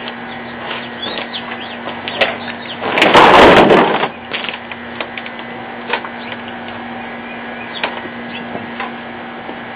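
Boiling water flung from a pot into 6°F air: about three seconds in, a loud rush of noise lasting about a second as the water flashes to vapor and spatters onto the frozen ground. A steady low hum and faint short chirps sit underneath.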